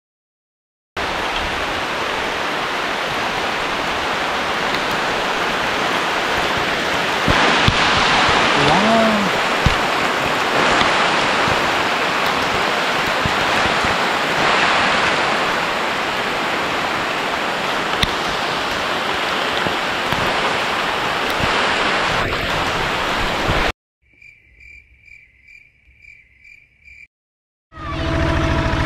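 Heavy rain falling steadily, an even hiss for about twenty seconds that cuts off suddenly. After a short near-silent gap with a faint rapid pulsing tone, a two-wheel tractor engine starts running near the end.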